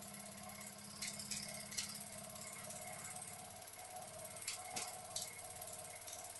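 Bing overtype model steam engine running slowly: a faint, steady mechanical ticking with a few sharper clicks.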